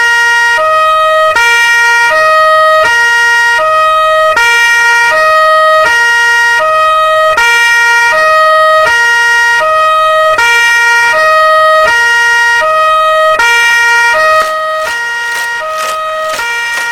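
Electronic two-tone hi-lo siren, switching between two pitches about every three-quarters of a second. It drops somewhat in level near the end, with a few clicks.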